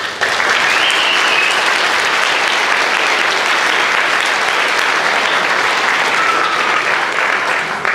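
Audience applauding: steady clapping that starts abruptly just after the beginning and tapers off near the end.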